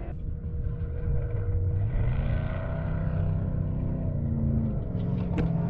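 Off-road race car engine running hard on the course. Its pitch climbs about two seconds in, holds, falls off near the four-second mark, then climbs again toward the end as the car accelerates, lifts and accelerates again.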